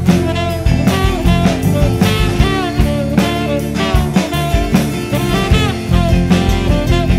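Instrumental break of a jazz-inflected rock song, no singing: drum kit keeping a steady beat under bass, guitar and a busy lead line with sliding notes.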